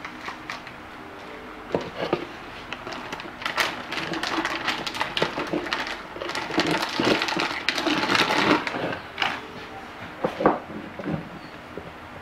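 Handling noises on a kitchen benchtop: scattered clicks and knocks, with a dense stretch of rustling and clatter in the middle, over a faint steady hum.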